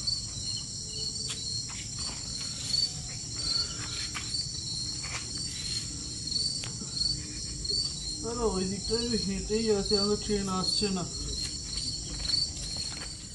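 Crickets chirping steadily at night, a high pulsing trill repeating evenly. From about eight seconds in, a person's voice hums or murmurs for about three seconds, with a few soft knocks scattered through.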